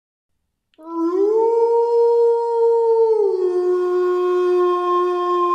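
A single long wolf howl. It starts about a second in, rises in pitch, holds, then drops to a lower pitch about three seconds in and holds there.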